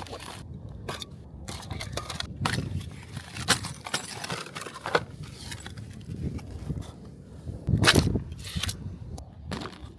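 E-bike packaging and parts being handled during unboxing: irregular knocks, rustles and light clinks, with a louder rustling thump about eight seconds in.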